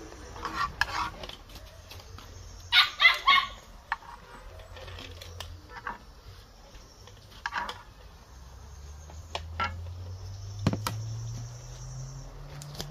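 A dog barking, with a quick run of three barks about three seconds in and a few single barks later. A few light clinks of a metal spoon against a frying pan sound between them.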